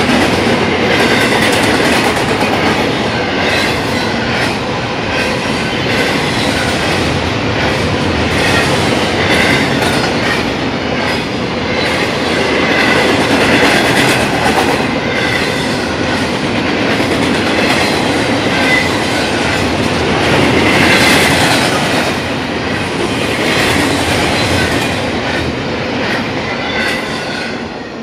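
Double-stack intermodal freight train's well cars passing at speed: a steady roar of steel wheels on rail with a clatter of wheel clicks and intermittent high-pitched wheel squeal. It dies away near the end as the last car goes by.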